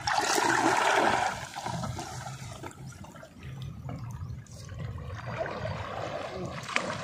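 Shallow water splashing and sloshing as it is stirred by hand or by wading, loudest in the first second or so, then quieter and uneven, with a sharp click near the end.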